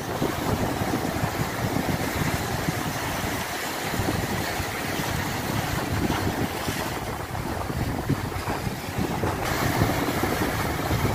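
Sea surf washing and breaking over rocks, with wind buffeting the microphone in a gusty low rumble.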